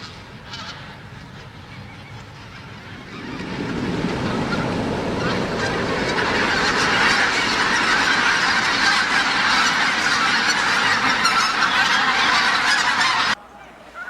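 A flock of wild geese honking, many calls overlapping into a dense clamor that swells in about three seconds in and cuts off abruptly near the end.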